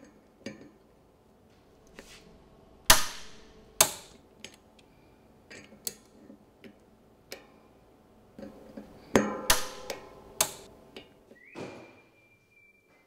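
Torque wrench tightening the Torx bolts of a bicycle disc brake rotor to 6 Nm: a string of sharp metallic clicks and clinks, loudest about three seconds in and again around nine to ten seconds in.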